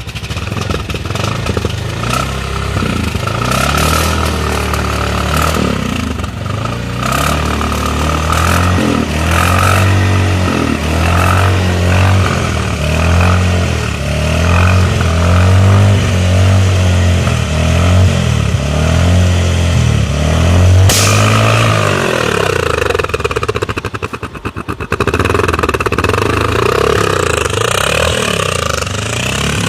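Motorcycle engine revving repeatedly through its silencer, the exhaust note rising and falling. About two-thirds of the way through a sharp pop cuts across it, typical of a balloon on the exhaust bursting, and the engine then settles to a quieter idle.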